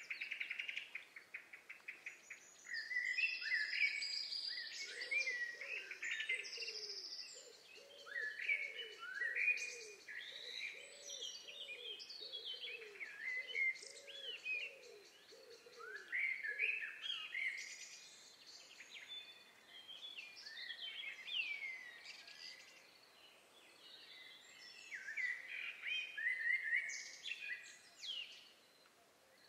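Forest birdsong: several birds chirping and whistling in many short falling notes, with a fast trill at the start. From about five to seventeen seconds in, a lower call repeats about ten times beneath them.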